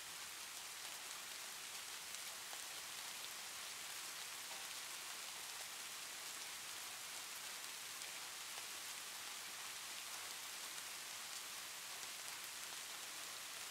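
Steady faint hiss, strongest in the high range, with a few faint ticks.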